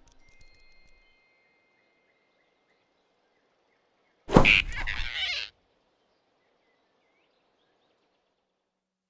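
A sudden swoosh-and-thump sound effect, about a second long and a little over four seconds in, as a giant rabbit snatches a flying squirrel in his fist. Before it there is faint forest ambience.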